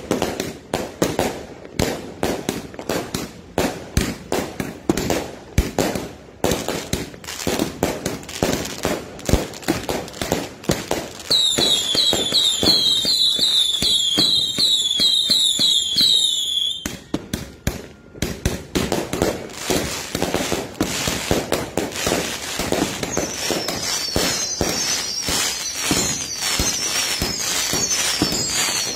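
A consumer multi-shot fireworks cake firing in rapid succession, with a steady stream of popping and crackling shots. Around the middle, a rapid string of short falling whistles runs for about five seconds, and more whistles join the shots near the end.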